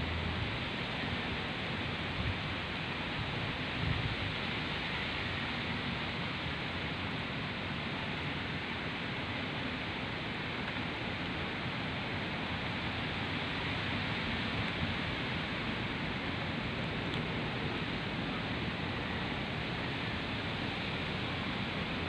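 Steady rushing hiss of wind through palm trees and garden foliage, with uneven low rumbling from wind on the microphone.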